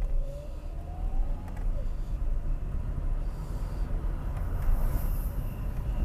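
Low, uneven rumble of a moving car's engine, tyres and wind noise while driving.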